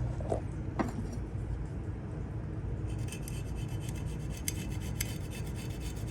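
Rubbing and scraping on the compressor, with a few light clicks early on and a run of quick faint ticks from about three seconds in, over a steady low hum.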